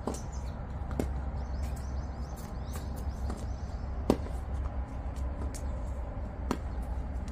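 Tennis rally on a hard court: sharp pops of rackets striking the ball and the ball bouncing, four in all, the loudest about four seconds in.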